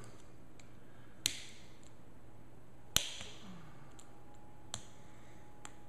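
Sharp metallic clicks of a small screwdriver tip against the steel bolt of an M1 carbine as it is worked against the extractor plunger to free the extractor. Two louder clicks, about one and three seconds in, among a few fainter ticks.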